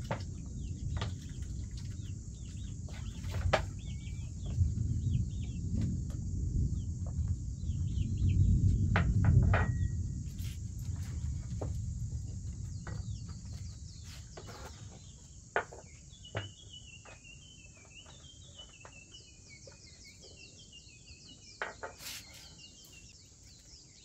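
Birds chirping over a steady drone of insects. A low rumble fills the first half and fades away, and in the second half quick, repeated bird chirps stand out.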